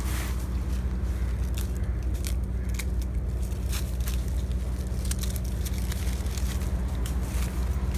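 Dry Indian almond (ketapang) leaves crackling and crunching as they are picked up by hand from the leaf litter and held in a handful, in many short irregular crackles. A steady low rumble runs underneath.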